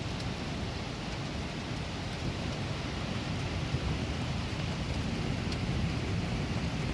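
Steady rain falling during a thunderstorm, with a low rumbling underneath that swells slightly near the end, and a few faint drip ticks.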